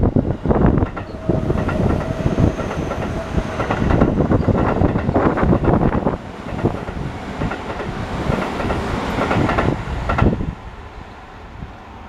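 Keio Line electric commuter train passing close by at speed, its wheels clattering rapidly over the rail joints, until the last car clears about ten seconds in and the sound falls away.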